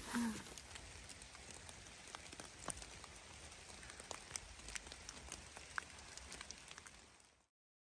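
Faint pattering of wet snow falling in bare woods: scattered light ticks over a soft hiss, fading out about seven seconds in.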